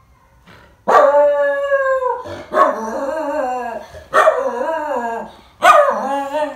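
White miniature schnauzer howling: four long, wavering howls about a second and a half apart, the first about a second in.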